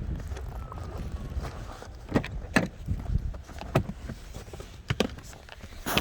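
A few irregular footsteps in snow, about six sharp steps from about two seconds in, over a steady low rumble.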